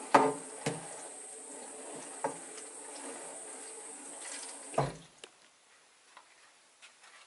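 Sink tap running as a plastic bedpan is rinsed under it, with a few hard knocks of the pan against the stainless steel sink; the water stops about five seconds in, leaving only faint small clicks.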